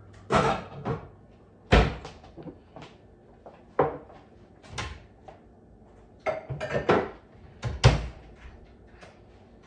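Kitchen cupboard doors opening and shutting as dishes are put away: about six separate knocks and bangs with short pauses between them, two of them louder than the rest.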